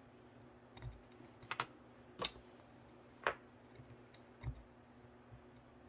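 Faint, scattered light clicks and taps of small parts of an HO-scale model steam locomotive being handled while its broken front coupler is worked loose, about six in all, with a quick double click about one and a half seconds in.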